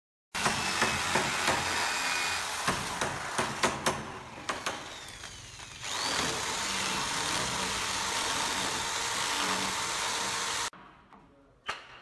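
Handheld electric drill boring into the wooden edge of a door to cut a lock mortise, running steadily with the bit grinding through the wood. It eases off in the middle and then comes back at full strength. Near the end the drill stops and a single knock follows.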